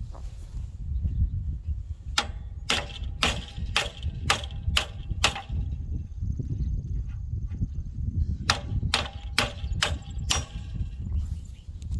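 Hammer blows ringing on steel in two runs of about half a dozen strikes each, roughly two a second, as a worn hitch bolt is driven out of a disc tiller frame.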